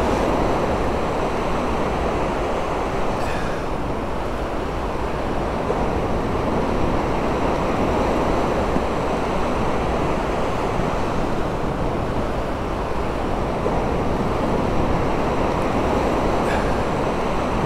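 Steady wind buffeting the microphone over the wash of surf breaking on a beach.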